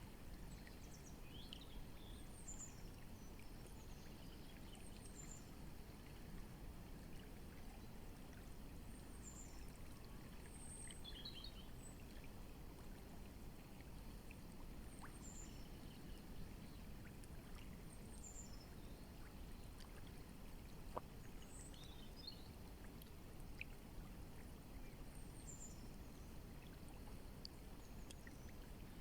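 Faint, steady rush of a flowing river. Small birds chirp every few seconds with short, high, falling notes.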